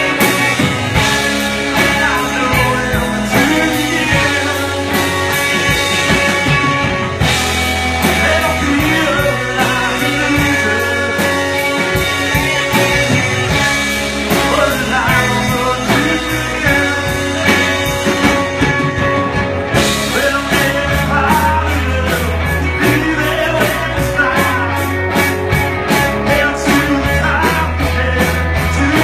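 Indie rock song with electric guitar, bass, drums and sung vocals. The cymbals become fuller and more driving about twenty seconds in.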